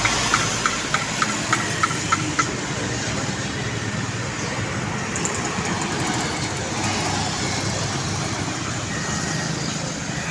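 Vehicle engine running steadily. For the first two and a half seconds a rapid series of short high-pitched beeps, about three or four a second, sounds over it and then stops.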